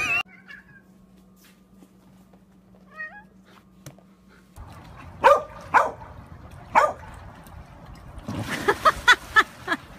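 A cat's short, faint meow, then dogs barking several times from about halfway. Near the end comes a noisy burst of splashing mixed with more barks.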